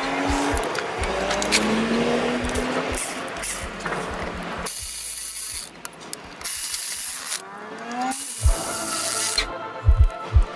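Cordless electric ratchet running in several short bursts on bolts at the front of the engine, its motor giving short rising whines over a hissing, rasping mechanical noise.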